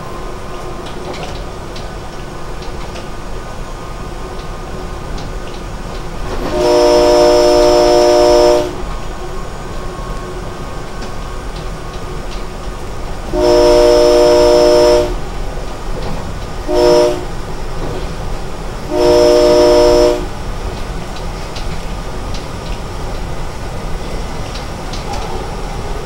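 SEPTA Silverliner electric multiple-unit's air horn, heard from the lead cab, sounding long, long, short, long: the standard grade-crossing signal. The train's steady running noise on the rails carries on underneath.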